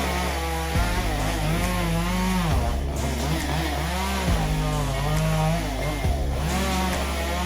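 Chainsaw running and revving up and down while cutting into a cherry tree, with background music underneath.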